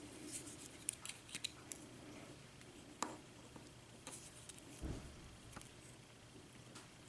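Faint clicks and taps of small tools on a Corbin Euro lock cylinder as the retaining clip is worked off the picked-open plug: a quick cluster of sharp clicks about a second in, a single knock at three seconds and a dull thump near five.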